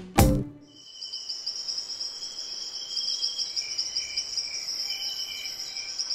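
A music beat cuts off about half a second in. After it comes a chorus of insects: a steady high, buzzing trill with a slower, evenly pulsing chirp beneath it, about two or three a second.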